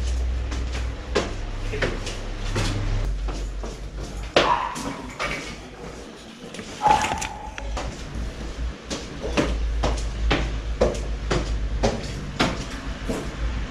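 Irregular clicks, knocks and light rattles of objects being handled, about a dozen sharp strikes with a couple of brief ringing clinks between them.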